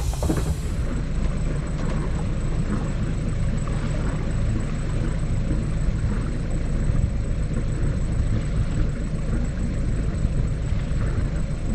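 Sailboat's auxiliary engine running steadily under a rushing background noise.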